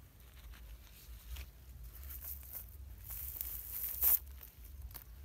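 Cast net's mesh rustling and scraping against dry ground as it is handled and lifted, in short irregular scratchy rustles, with a sharper, louder rustle about four seconds in.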